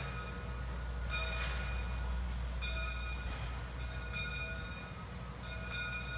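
Steam locomotive bell ringing four times, about once every second and a half, each stroke ringing on briefly and fading. Under it runs the steady low rumble of the 1920 Baldwin steam locomotive working slowly with its passenger train.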